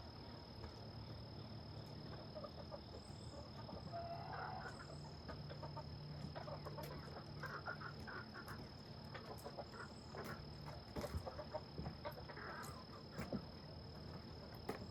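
Chickens clucking faintly, a few short calls spread through, over a steady high-pitched hum, with scattered light clicks and rustles in the second half.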